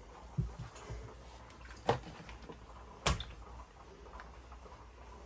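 A soft low thump, then two sharp clicks about a second apart, over a faint low hum.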